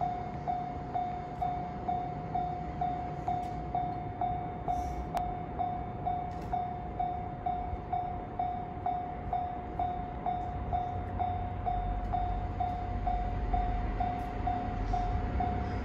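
Railway level-crossing alarm ringing its repeated electronic ding about twice a second. From about ten seconds in, the low rumble of an approaching freight train's DD200 diesel-electric locomotive rises beneath it.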